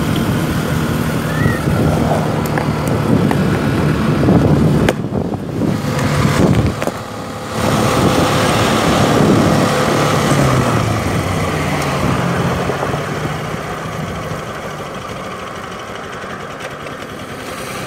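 Motorcycle engine running on the move, with wind and road noise; the engine's pitch wavers around the middle and the sound slowly fades toward the end.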